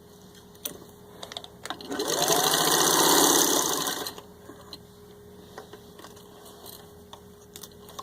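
Vintage 1950 Singer 15-91 sewing machine stitching through four layers of vinyl upholstery. It runs in one burst of about two seconds, picking up speed at the start, with a few sharp clicks before and after.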